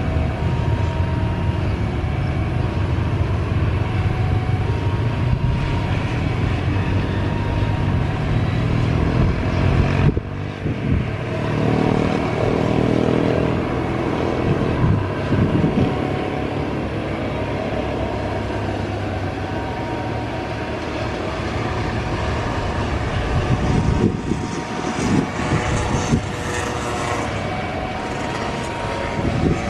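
Jet airliner engines rumbling steadily, with a brief dip and change in the sound about ten seconds in.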